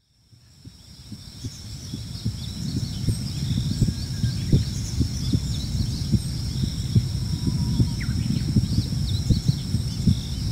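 Recorded heartbeat of a pregnant mother: low, muffled thumps, about two to three a second, fading in over the first few seconds. Above it, birds chirp and an insect trills steadily on a high note.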